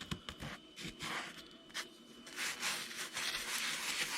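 Plastic-bristle brush scrubbing over freshly V-carved PVC to clear the fuzzy burrs left by the cut. A few light clicks first, then steady scrubbing from about halfway through.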